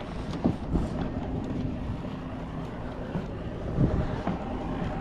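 An engine running steadily, with wind buffeting the microphone and a few short knocks.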